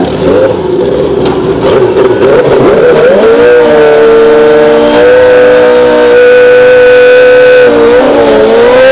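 Turbocharged Suzuki Pro Street drag bike's engine revving unevenly, then held at high, steady revs for a burnout, spinning the rear tyre. The revs dip briefly near the end and come straight back up.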